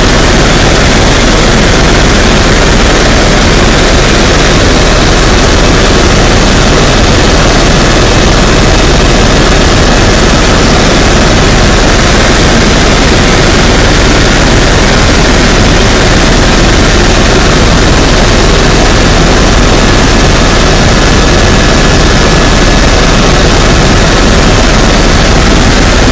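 Helicopter in flight heard from inside the cabin: a loud, steady noise of rotor and engine that does not let up.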